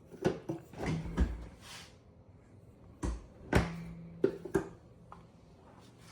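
Several sharp knocks and clicks, in two clusters about two seconds apart, with a faint steady hum under some of them.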